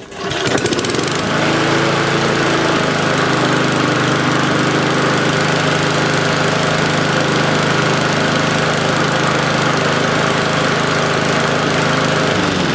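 Mountfield SV150 single-cylinder petrol lawnmower engine firing up and, after a brief change in speed in the first couple of seconds, running at a steady, even speed without hunting. Its idle speed screw is turned well in, and the owner judges it perhaps still running a bit fast.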